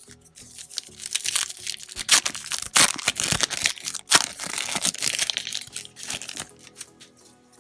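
A trading-card pack wrapper crinkling and crackling as it is torn open and handled, with several sharp louder crackles in the middle before it settles down near the end.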